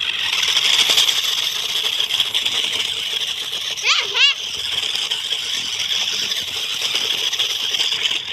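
Toy RC rock-crawler truck's small electric motor and gearbox whining steadily at a high pitch as it drives, starting and stopping abruptly. About four seconds in, a brief warbling chirp sweeps up and down over the whine.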